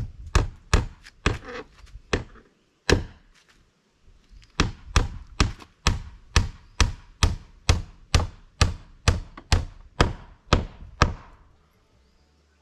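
A hand tool striking wood again and again at a steady beat of about two blows a second, with a short pause in the first third; the blows stop just before the end.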